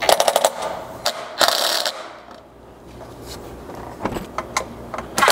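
Cordless power driver with a 3/16 hex bit running in three short bursts, with a rapid clicking rattle, as it drives 5/16 button-head bolts tight into the steel slider and skid plate.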